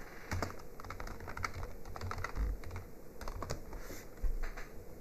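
Typing on a computer keyboard: an irregular run of key clicks, some with a dull thud underneath.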